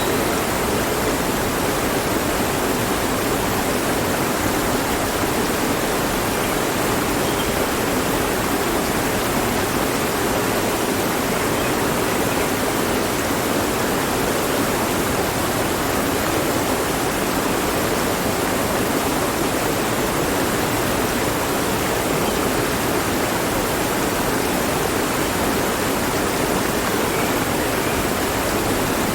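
Mountain stream rushing over rocks, a steady, even water noise with no breaks.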